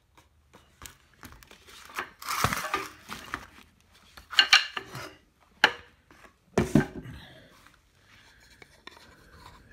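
Painted wooden chair parts knocking and clattering together as they are picked up and set down, several separate knocks with a longer scraping stretch about two seconds in.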